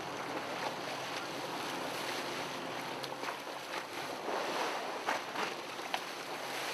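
Wind and sea noise on the deck of a sport-fishing boat in rough water, a steady rush with a faint low hum underneath and a few light knocks.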